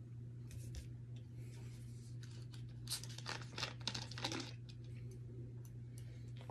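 Green plastic soda bottle handled and its screw cap twisted open: a cluster of crackling and clicking about three to four and a half seconds in, over a steady low hum.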